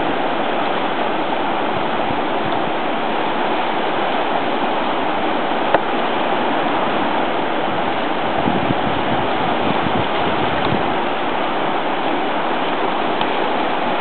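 Steady rush of whitewater river rapids, with one brief click about six seconds in.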